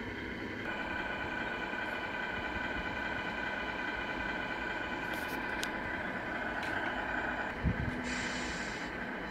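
The RC truck's sound unit plays a steady truck diesel idle. A low thump comes near the end, then a short hiss of a simulated air brake release.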